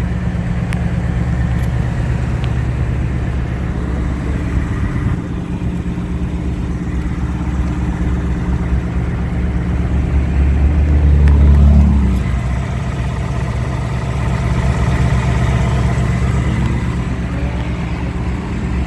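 Ford Mustang GT's 5.0-litre V8 running steadily with no typewriter tick heard, just after an oil change. A little past halfway the engine note rises briefly, then falls back.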